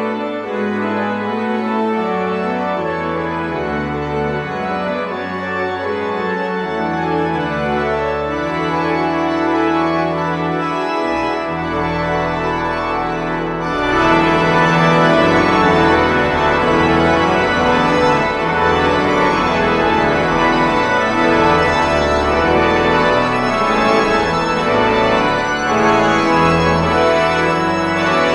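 Pipe organ playing slow sustained chords. Deep pedal bass notes come in about eleven seconds in, and a few seconds later the sound swells louder and fuller.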